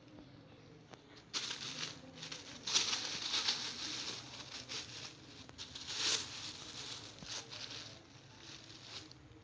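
Crinkling and rustling, starting about a second and a half in and going on in uneven spurts, loudest around three and six seconds in, fading near the end.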